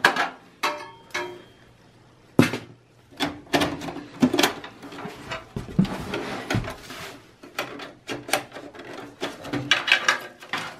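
Handling noise from a Dell XPS 8900 desktop's steel chassis and its cables: irregular clicks, knocks and rattles, with a brief metallic ring about a second in and a sharp knock after a short quiet spell.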